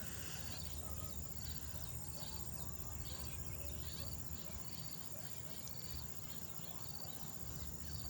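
Outdoor insect chorus: a steady high-pitched trill with a short chirp repeating about once a second, scattered small bird-like chirps, and a low rumble underneath.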